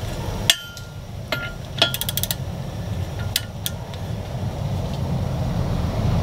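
A ratchet wrench on a propeller's castle nut: sharp metal clinks that ring briefly, and a quick run of ratchet clicks about two seconds in, as the nut is tightened a little further to line its slots up with the cotter-pin hole.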